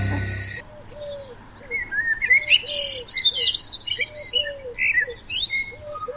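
Morning birdsong: several small birds chirping and warbling, with a lower call repeated in short groups of two to four. About half a second in, a music bed with crickets from the night scene cuts off before the birdsong starts.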